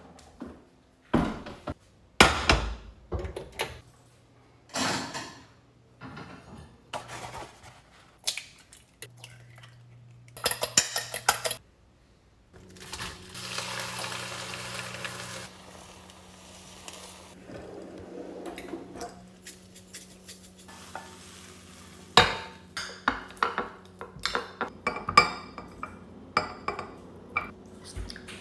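Kitchen cooking sounds: knocks and clatter of dishes and utensils, then a steady sizzle as beaten eggs go into a hot frying pan, then a fork clinking against a plate near the end.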